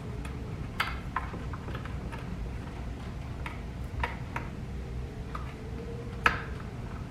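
Scattered light clicks and taps from handling small plastic parts, the sharpest a little after six seconds in, over a steady low hum.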